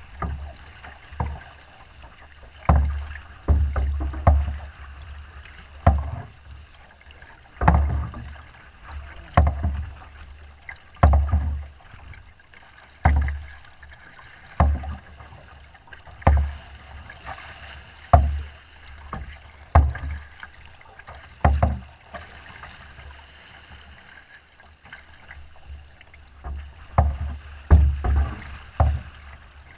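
Wind-driven chop slapping against the hull of a small paddled boat, a deep splashing thud every one and a half to two seconds over a steady hiss of wind and water. The slaps ease off for a few seconds about three quarters of the way through.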